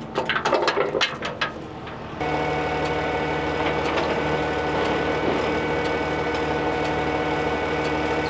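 A few knocks and clatters, then about two seconds in a diesel engine starts running and holds a steady idle: the Bobcat T450 skid steer being fired up to drive off the trailer.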